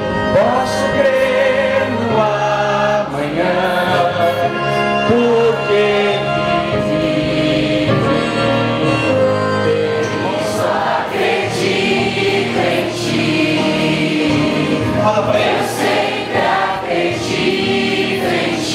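Music: a choir singing a Christian worship song.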